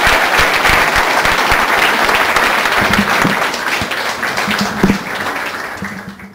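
Audience applauding, the clapping slowly dying down over the last couple of seconds.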